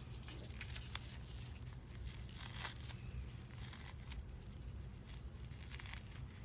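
Faint rustling and scattered small clicks of nitrile-gloved hands handling a syringe and port tubing, over a steady low hum.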